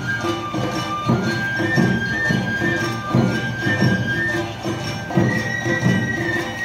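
Awa Odori dance music: a bamboo flute plays a held, stepping melody over a steady beat of drums, about two strikes a second, with a metallic jingle in the mix.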